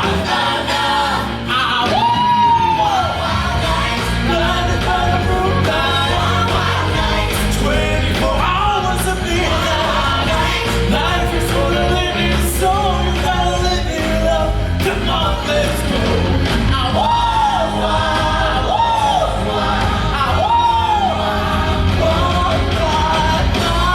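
Rock song played loud over a stage sound system, with a male singer. He holds several arching high notes, a couple of seconds in and again three times in the second half.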